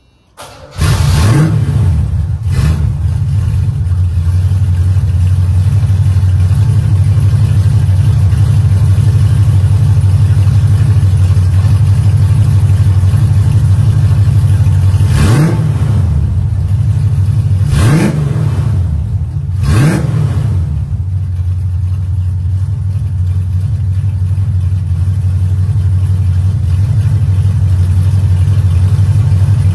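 Small-block V8 with an aftermarket 2.5-inch exhaust starting up about a second in, then idling steadily. It is blipped five times: twice just after starting and three times between about 15 and 20 seconds in.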